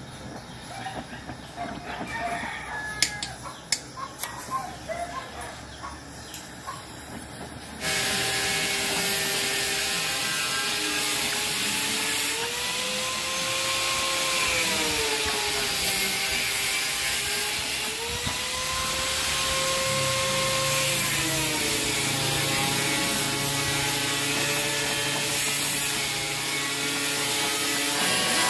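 Gas welding torch flame hissing as aluminium filler rod is melted into a crankcase repair. About 8 s in the hiss jumps up loudly, with a steady whine in it that slowly rises and falls in pitch; before that it is quieter, with scattered clicks.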